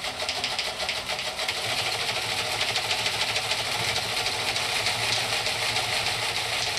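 Recording of a telex machine (teleprinter) printing: a fast, even mechanical clatter of rapid clicks, played over a hall's loudspeakers.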